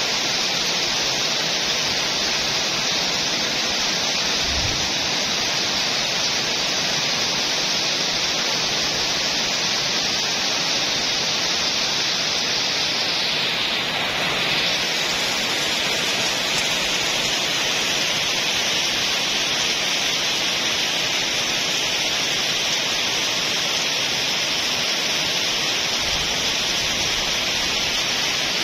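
Very heavy rain pouring steadily, an even, dense hiss that holds unchanged throughout.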